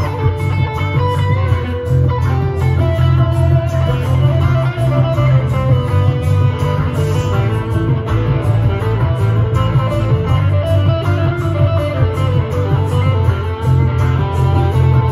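Amplified acoustic-electric guitar played live, an instrumental passage of picked and strummed notes over a strong, steady low end.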